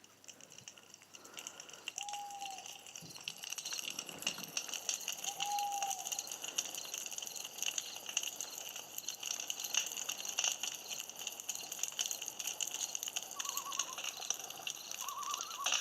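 Campfire crackling and popping, with a steady high-pitched hiss. A few short whistle-like calls sound over it.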